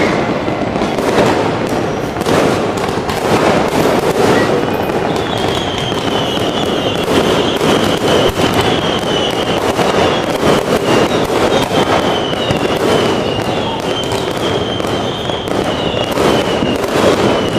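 Fireworks going off in a dense, unbroken run of bangs and crackles. A high, wavering whistle-like tone runs above them from about five seconds in.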